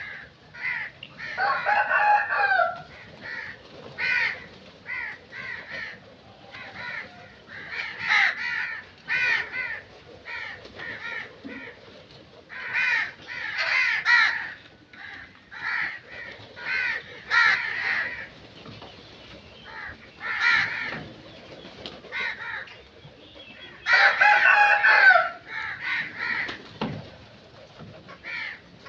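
Crows cawing over and over in short calls, with two longer, louder calls: one about two seconds in and one near the end.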